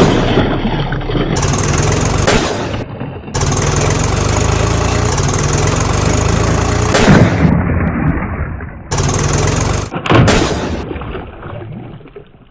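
A heavy engine runs in a steady low rumble, broken by abrupt changes and by several loud sudden crashes or splashes, about seven and ten seconds in. The sound fades out near the end.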